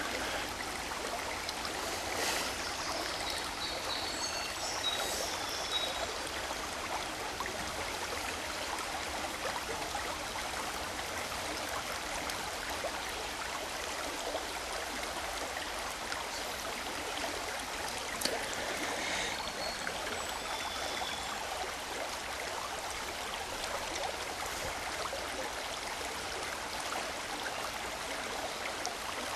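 Water of a small stream running steadily, an even rushing and babbling. A few brief high tones come through a few seconds in and again about two-thirds of the way through.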